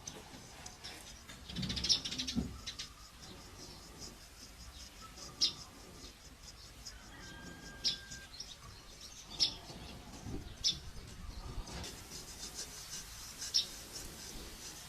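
Traditional barber's tools working close to the microphone: short, sharp scrapes or clicks, one every second or two, with a denser run about two seconds in and more toward the end.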